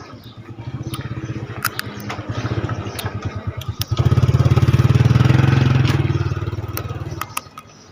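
A motorcycle engine passing close by: it grows louder to a peak about four to six seconds in, then fades and drops away about seven seconds in.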